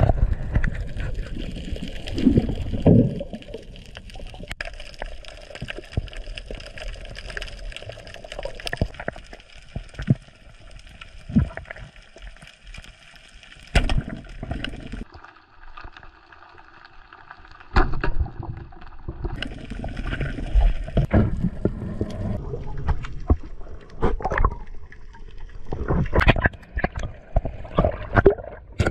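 Muffled underwater water noise picked up by a camera in its waterproof housing, an irregular rumbling wash with scattered knocks and clicks, quieter for a couple of seconds a little past the middle.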